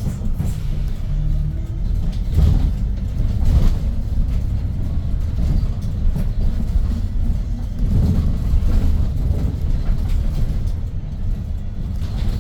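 Inside a 2022 Hyundai New Super Aerocity city bus on the move: the low rumble of its C6AF CNG engine and road noise, with body rattles and jolts from bumps about two, four and eight seconds in.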